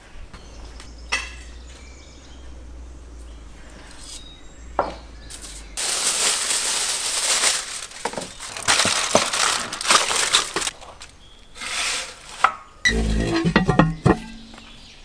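Aluminium foil crinkling and rustling in several bursts as a sheet of it is handled and folded over a baking tray. Near the end comes a metallic clatter from the oven's metal door and latch.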